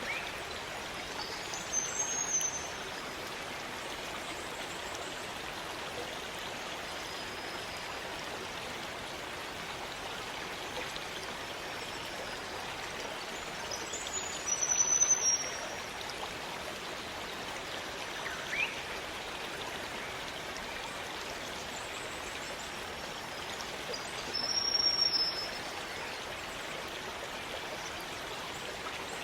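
A rainforest stream running with a steady rush of water. Three short high-pitched calls cut through it, about 2, 15 and 25 seconds in.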